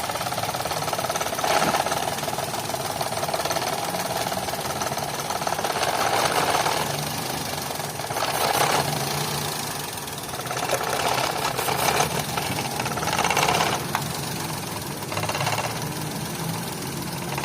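Toyota Vitz petrol engine running roughly with a misfire on cylinder 3 (fault code P0303), a few brief louder swells over a steady uneven run. The misfire is later traced to the pulse wires on the number 3 fuel injector connector being swapped.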